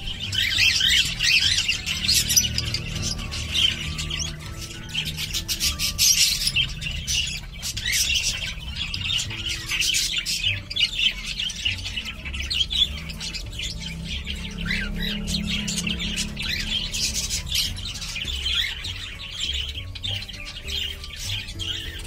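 Cockatiels chirping and squawking in rapid, overlapping calls, over background music.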